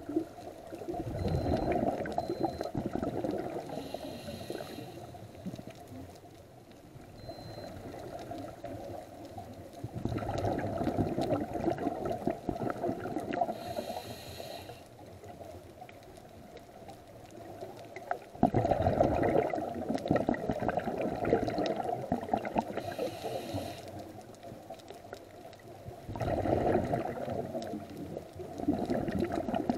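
Scuba diver breathing through a regulator underwater: four long bubbling exhalations about eight seconds apart, each followed by a short hissing inhale.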